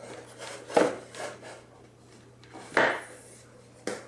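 White-pine toolbox parts knocking and clunking together as a glued side panel is pressed into place over the bottom panel: a few separate wooden knocks with some handling and rubbing between them.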